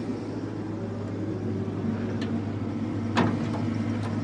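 Steady low hum of an idling engine, with a sharp click about three seconds in as a small access door in the tractor's side panel is opened.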